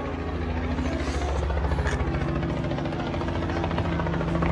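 Helicopter rotor beating rapidly and steadily over a low engine drone, growing a little louder near the end.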